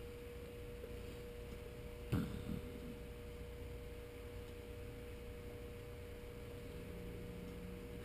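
A faint, steady hum at a single pitch, with one sharp knock about two seconds in.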